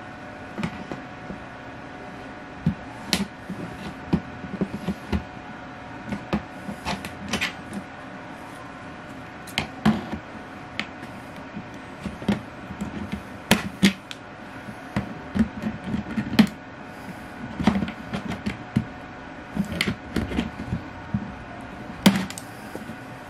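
Irregular sharp clicks and knocks of zip ties on a plastic tote's lid being snipped with hand snips and the plastic lid being handled, loudest about 13, 16 and 22 seconds in, over a steady hum.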